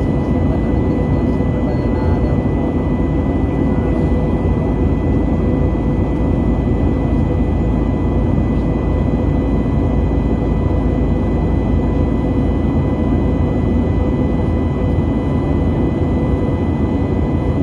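Steady cabin noise inside an Airbus A320neo jet airliner in flight: a constant deep rumble of engines and airflow, with a few faint steady hums held at fixed pitch.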